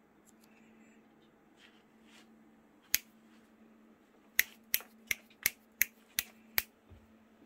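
Finger snaps: a single snap, then a quick run of seven snaps at about three a second.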